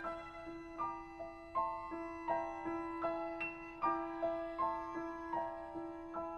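Classical piano music: notes struck at an even pace, about two and a half a second, each ringing out over one long held note.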